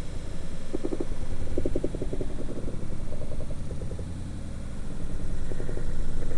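Underwater sound of the sea recorded on a freediver's camera: a steady low rumble, crossed in the first few seconds by several short runs of rapid low rattling pulses.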